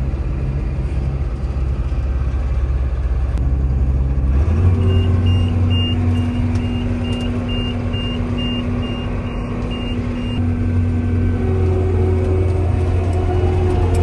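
Massey Ferguson combine harvester's diesel engine running, heard from inside the cab. About four and a half seconds in the engine note rises, and a steady series of short high beeps starts at about two and a half a second. The beeps stop around ten seconds in and come back briefly near the end.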